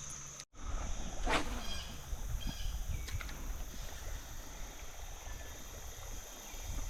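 Outdoor creek ambience: a steady low rumble of wind on the microphone over a faint hiss of moving water, with a few faint high chirps.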